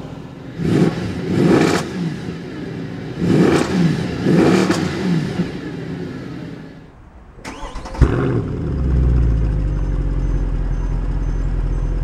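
Mercedes-Benz C63 AMG Edition 507's naturally aspirated V8 being free-revved at a standstill from the cabin: four quick throttle blips in two pairs, each rising and falling back to idle. After a short lull the engine is heard from outside at the quad exhaust tips, idling steadily with a deep bass tone.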